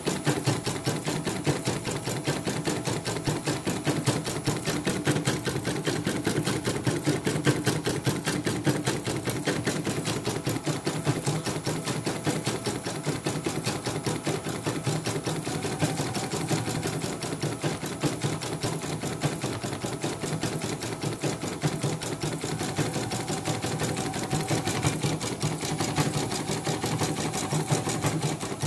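CNY E900 computerised embroidery machine stitching a test design: a rapid, even clatter of needle strokes, steady throughout. It is a test run after a mainboard repair, and the machine runs in a way the repairer judges to be all right.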